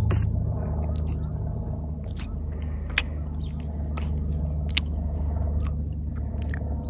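Mouth sounds of eating a spoonful of sticky peanut butter: wet smacking and chewing, with a few sharp mouth clicks, over a steady low hum.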